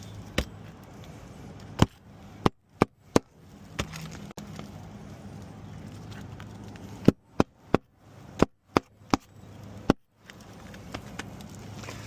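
Roofing hammer driving nails through asphalt shingles into the roof deck: about a dozen sharp separate strikes, one group in the first few seconds and another a few seconds later.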